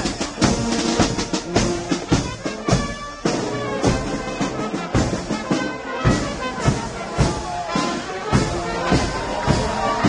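Marching brass band playing a tune, the brass over a steady drum beat.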